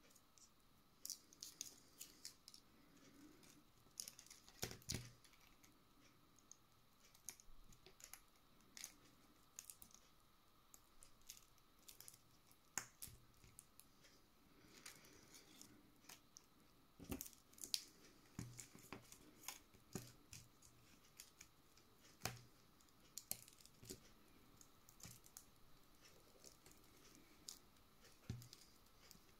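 Faint, scattered small clicks and taps of smartphone parts being handled: a replacement display laid onto an opened Cubot P20 and its flex cable fitted.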